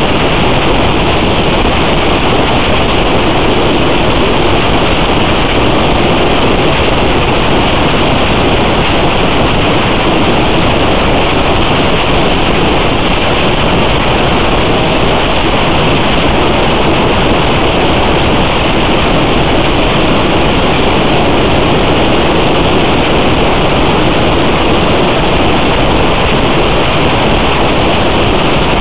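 Constant loud static hiss, even and unbroken, with no motor tone in it: the noise of an analog FPV video link's empty audio channel.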